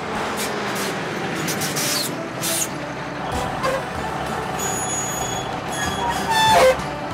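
Truck running, over background music, with a brief loud squeal about six and a half seconds in.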